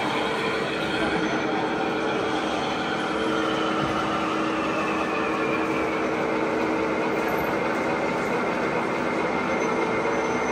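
Model train running on an expo layout: a steady rolling hum with a couple of held tones.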